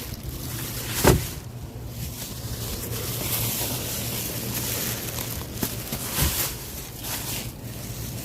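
Shopping bags and items being set into a car trunk, with a sharp knock about a second in and another about six seconds in, over a steady low hum and wind on the microphone.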